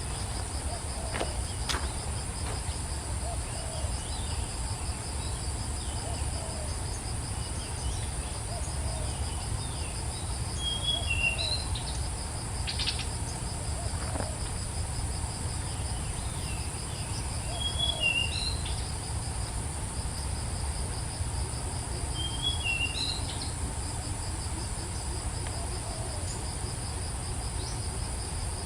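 Insects trilling steadily in two unbroken high-pitched bands, one of them pulsing rapidly. A bird repeats a short chirping phrase every five or six seconds over a low background rumble.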